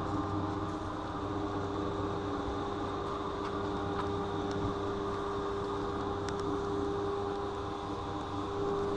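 Commuter train running: a steady rumble with a constant whine over it and a few faint clicks.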